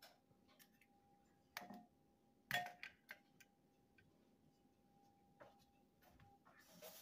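Light clicks and two sharper knocks, about one and a half and two and a half seconds in, the second the louder: eggs being cracked against a stainless steel mixer bowl.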